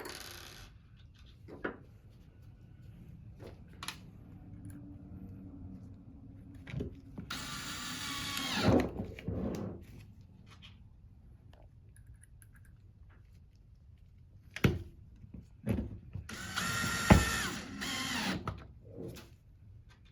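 Power screwdriver driving the motor's mounting screws back into the pump, in two runs with a whine that shifts in pitch, separated by clicks and knocks of handling.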